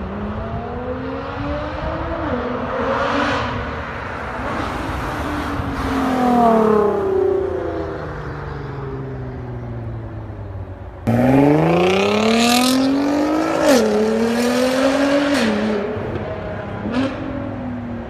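Nissan GT-R R35 Nismo's twin-turbo V6 through an Armytrix aftermarket exhaust, accelerating and easing off, its pitch climbing and falling. About eleven seconds in it comes in suddenly louder under hard acceleration, the pitch climbing steeply and dropping back twice as it changes up.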